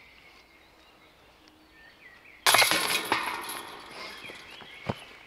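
A disc striking the chains of a disc golf basket about halfway through, a sudden loud metallic jangle that dies away over about a second. A sharp click follows near the end.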